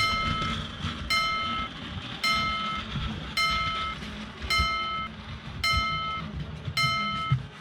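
Railroad crossing warning alarm ringing in steady strikes about once a second while a train passes with a continuous low rumble and rail clatter.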